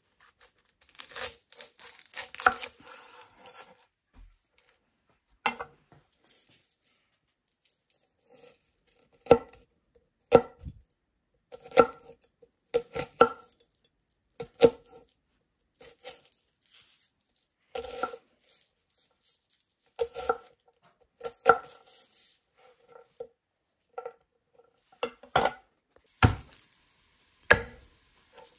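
A large kitchen knife cutting onion on a wooden butcher-block board. First comes a stretch of crunchy slicing through the onion, then separate knocks of the blade on the board, roughly one a second.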